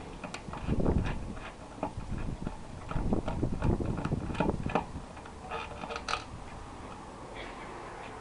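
Bolts being undone by hand tool from the filler-cap ring of a motorcycle fuel tank: irregular metallic clicks and knocks, with duller handling noise about a second in and again from about three to five seconds in.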